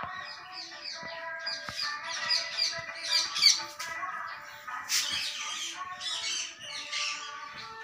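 Background music with long held notes, with birds chirping rapidly and repeatedly over it.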